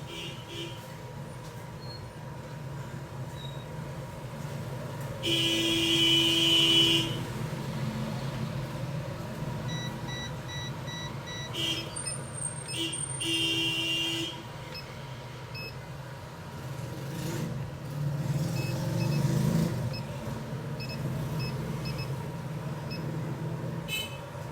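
Steady background traffic with a vehicle horn honking, held for about two seconds around five seconds in and again briefly near the middle.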